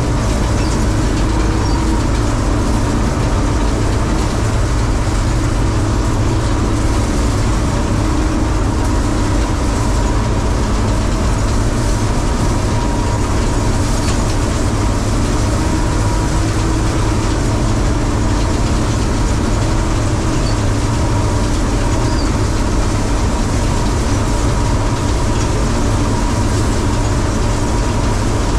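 Bizon combine harvester running steadily while harvesting wheat: a continuous engine and machinery drone with a steady high whine over it.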